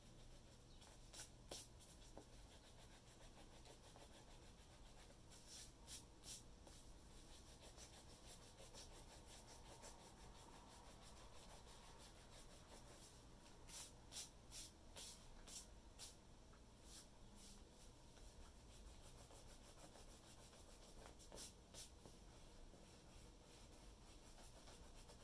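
Faint rubbing of an eraser scrubbing pencil sketch lines off sketchbook paper, in several short spells of quick back-and-forth strokes with pauses between.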